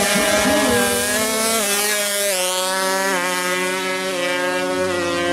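155cc two-stroke drag bike engine at full throttle. Its high buzzing pitch climbs, then drops at each gear change, several times.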